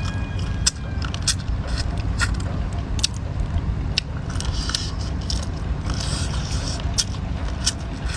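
Crunching and cracking of mantis shrimp shells being bitten open and chewed, many short sharp crackles scattered throughout, over a steady low rumble.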